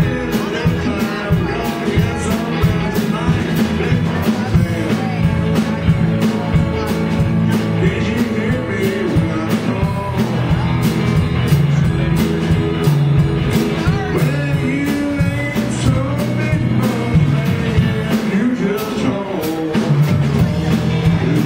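Live blues band playing a steady shuffle on drum kit and electric guitars, with an amplified blues harmonica, cupped against a hand-held microphone, taking the lead line.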